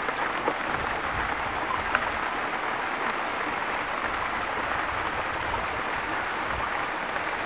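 Steady rushing of a flowing river, with a faint tick or two.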